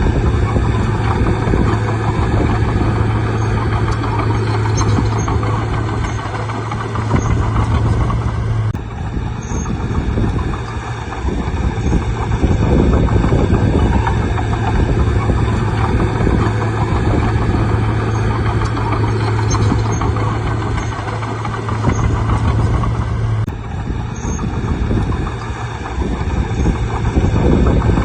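Bulldozer's diesel engine running under load with a steady low drone, working as it pushes soil; the sound shifts abruptly twice, about nine seconds in and again near 23 seconds.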